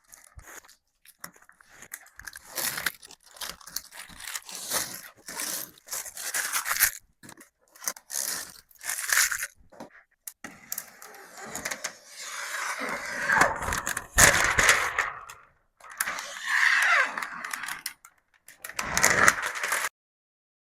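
Irregular scraping, crackling and tearing noises as a plastic cable cover is handled and fitted, with its double-sided tape being peeled and pressed, and a couple of short falling squeaks.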